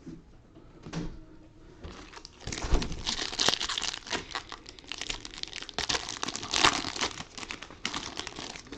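Trading-card pack wrapper being torn open and crinkled by hand, a dense crackling that starts about two seconds in and keeps going nearly to the end.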